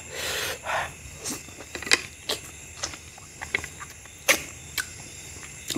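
Close-up wet eating sounds of mutton curry and rice eaten by hand: a slurp at the start, then chewing with a few sharp lip smacks and sucking clicks at uneven intervals.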